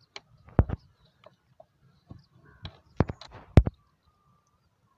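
A few sharp, irregular metallic clicks and knocks of hand tools on the fuel-injection pipe fittings of a stopped diesel engine, the loudest about three and a half seconds in, as air is bled from the fuel line.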